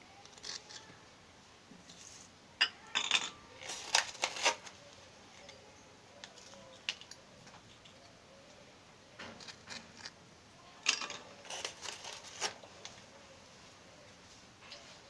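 Sharp clicks and light clinks of Oreo biscuit halves, cream discs and a table knife against glass bowls as the biscuits are split and their cream is taken off. They come in two bursts, one about three seconds in and the other around ten to twelve seconds.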